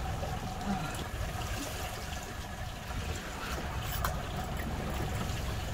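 Water sloshing and trickling against a fishing boat's hull over a low steady rumble.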